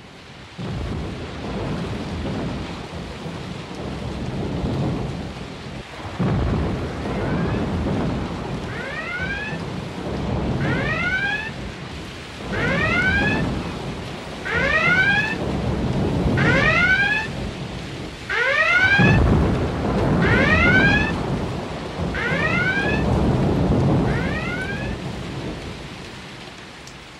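Storm sound effect: heavy rain with rolling thunder swelling in waves. Over it, from about seven seconds in, a rising wailing tone repeats about every two seconds.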